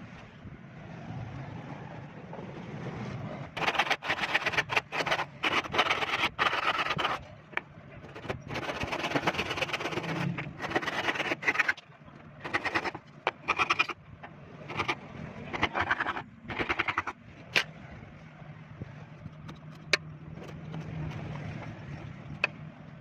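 Hand tools working wood: rasping sawing and scraping strokes in short stretches that start and stop abruptly, with a few sharp knocks, over a low steady hum.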